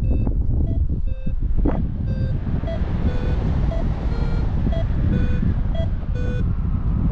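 Paragliding variometer beeping about twice a second, its pitch stepping between two notes: the climb tone that signals rising air. Steady wind noise on the microphone runs underneath.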